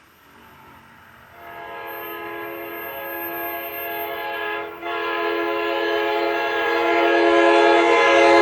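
NJ Transit ALP-45DP locomotive 4545 sounding its air horn in a horn show as it approaches. The horn starts about a second in, breaks off briefly near the middle, then sounds again and grows steadily louder.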